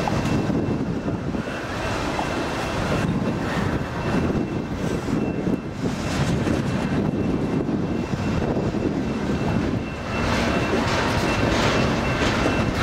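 Double-stack container well cars rolling past close by: a steady rumble of steel wheels on the rails, with scattered clatter. It gets louder and clatters more from about ten seconds in.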